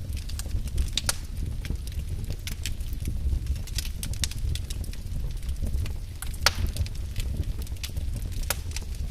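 Wood fire crackling in a fireplace: irregular sharp pops and snaps over a low steady rumble, with one louder pop about six and a half seconds in.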